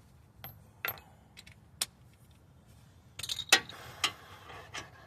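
Metal hand tools clinking: a few sharp separate clicks, then a short clatter about three and a half seconds in, the loudest moment, followed by a couple more clicks.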